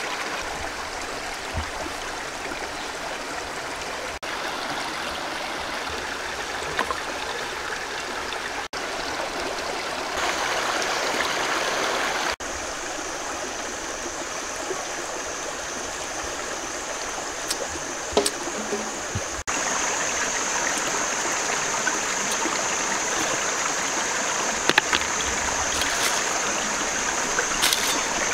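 Steady rushing of a stream over rocks. A thin, steady high tone joins about ten seconds in, with a few light clicks.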